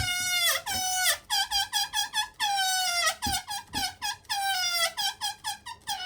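Air squealing out of the stretched neck of an inflated balloon. There are several longer whines that slide down in pitch, with quick runs of short chopped squeaks between them as the neck is pinched and let go.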